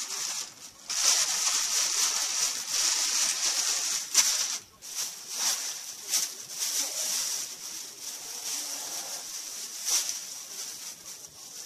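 Plastic bags and packaging rustling and crinkling as items are handled and dug through, with sharper crackles about four seconds in and again near the end.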